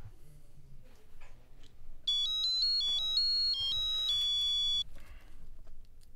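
Mobile phone ringtone: a short melody of electronic beeping notes stepping up and down in pitch, starting about two seconds in and cutting off abruptly nearly three seconds later.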